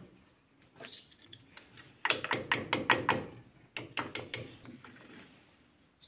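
Sharp clicks and knocks of a Kress rotary tool and a metal hose-clamp band being handled and pushed into a CNC router's mount. A quick cluster of clicks comes about two seconds in, and a shorter run of four or five near the four-second mark; the tool's motor is not running.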